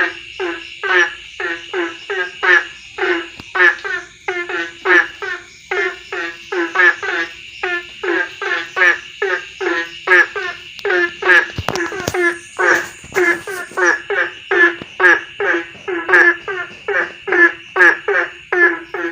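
Frogs calling in a chorus: short, pitched croaks repeating about two to three a second, overlapping one another, over a steady high insect drone.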